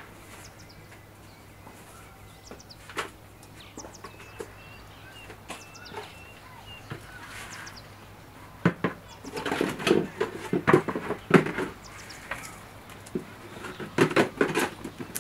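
Gloved hands digging and scooping potting soil in a plastic tub, rustling and scraping in bouts, loudest in the second half. Birds chirp faintly in the background.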